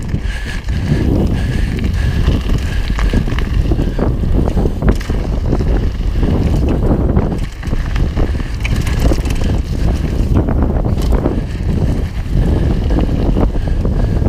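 Mountain bike rolling fast downhill on gravel and packed dirt: a steady rumble of wind on the microphone and tyre noise, with frequent clicks and rattles from the bike over the rough surface.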